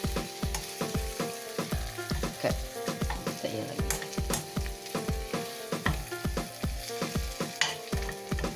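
Food sizzling as it is stir-fried in a wok, with a metal spatula scraping and tossing it. Background music with a steady quick beat plays underneath.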